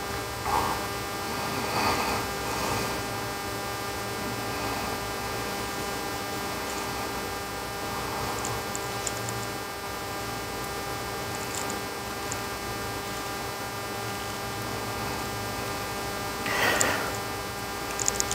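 Steady electrical mains hum with a buzzy edge, with a few faint handling knocks and rustles, the most noticeable near the end.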